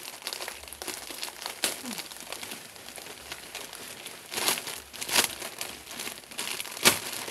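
Plastic bags and packaging crinkling and rustling as they are handled and rummaged through, with three louder crackles in the second half.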